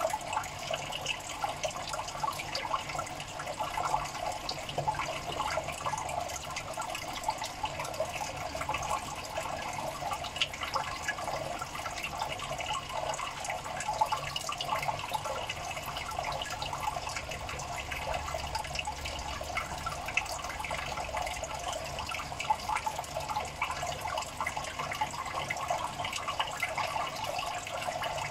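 Steady trickling and bubbling of water in a crayfish tub, a continuous wash with many small splashes.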